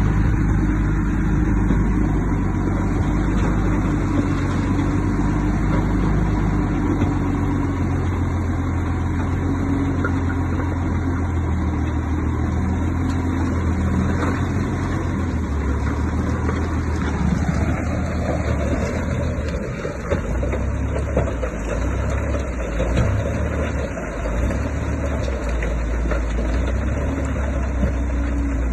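Heavy diesel earthmoving machinery running steadily, its engine note shifting and wavering a little over halfway through.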